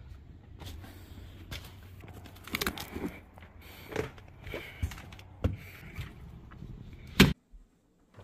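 Scattered handling sounds: light knocks, clicks and rustles over a low hum, then one sharp, loud knock about seven seconds in, after which the sound cuts out abruptly.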